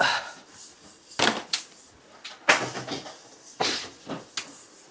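Kitchen clatter: six or seven separate knocks and bangs from things being handled at the counter, the loudest about halfway through.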